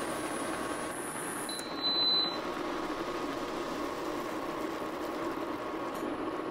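A pot of instant ramen noodles boiling on an induction hob, with a steady bubbling hiss and a faint steady hum. A short high beep sounds about two seconds in.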